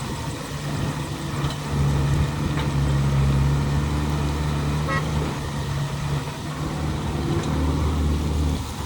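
Heavy diesel engine of a working excavator running under load, its level rising about two seconds in and easing off around six seconds, with a brief high beep about five seconds in.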